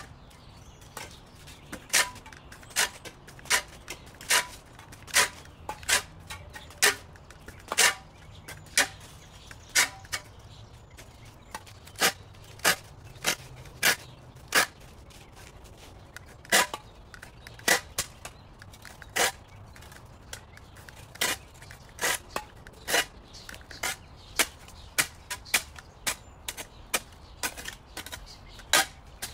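Raindrops tapping on the microphone: sharp, irregular taps about one or two a second over a faint low rumble.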